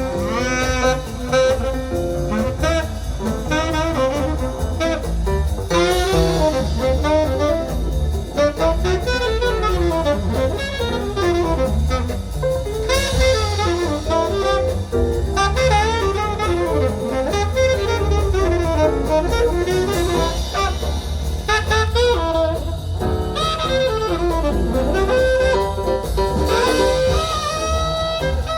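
Jazz recording with a saxophone lead over brass and drum kit, played back from a CD through a hi-fi loudspeaker system.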